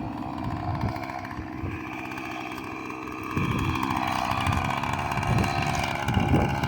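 Husqvarna 445 two-stroke chainsaw idling steadily, running a little louder from about three and a half seconds in.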